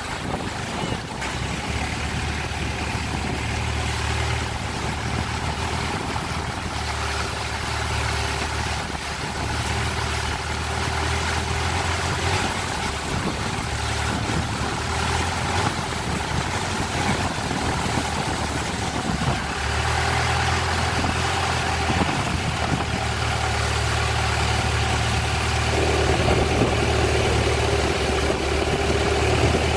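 Long-tail boat engine running steadily under way, with water and wind rushing past the hull; the engine note steps up a little near the end.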